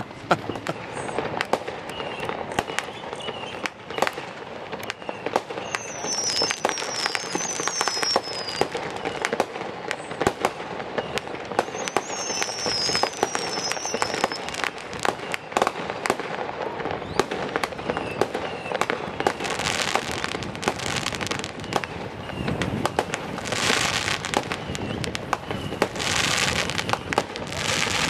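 Aerial fireworks going off: a continuous run of pops and bangs, with two runs of short falling whistles, and several stretches of dense crackling in the second half.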